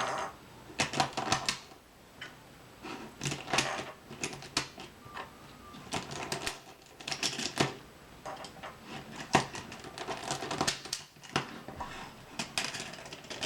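Plastic Rubik's Cube pieces clicking and snapping as the cube is put back together by hand, in irregular clusters of sharp clicks with short pauses between.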